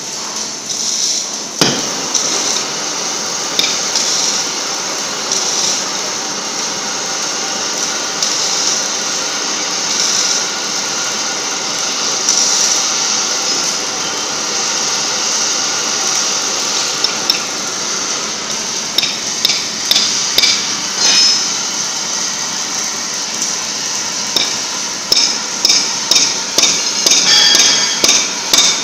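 Three-torch oxy-fuel bevel cutting head on a CNC gantry flame cutter hissing steadily as it heats and begins cutting thick steel plate. Sharp knocks sound now and then, coming in a quick run of about two or three a second near the end.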